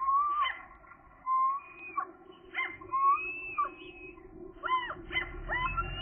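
Gulls calling: a string of short, high calls that glide up and down in pitch, some of them quick rising-and-falling notes, over a steady low hum.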